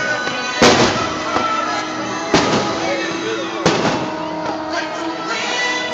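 Aerial fireworks bursting: three sharp bangs about a second and a half apart, each with a short ringing tail, over music playing steadily underneath.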